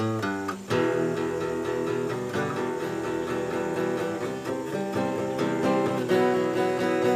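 Acoustic guitar strummed and picked in an instrumental passage of a song.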